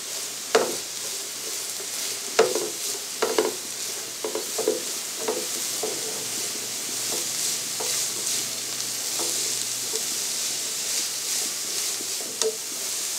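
Shredded cabbage, carrot and green capsicum sizzling in hot oil in a frying pan, with a spatula stirring and scraping through them. The stirring strokes come every second or so at first and thin out after about six seconds, leaving a steady sizzle.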